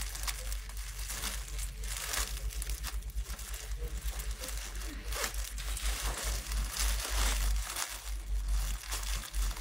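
Plastic packaging being handled and opened, crinkling and tearing in irregular rustles, over a steady low rumble.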